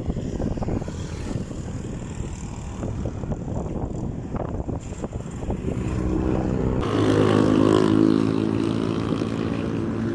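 Honda Dio scooter's single-cylinder engine running while riding, with wind buffeting the microphone; about seven seconds in the wind rumble drops away and the engine's steady tone comes through clearly, growing louder briefly.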